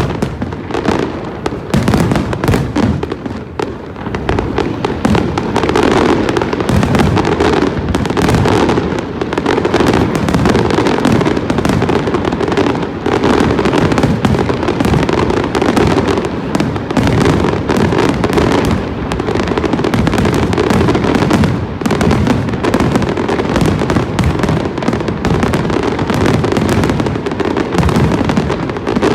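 Large fireworks display with a dense, continuous barrage of booming shell bursts and crackling, loud throughout.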